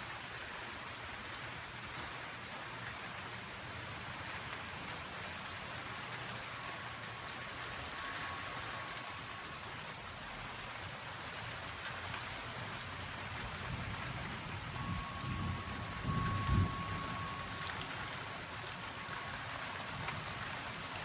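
Steady monsoon rain falling on a flagstone patio and garden plants, with a brief low rumble about two-thirds of the way through.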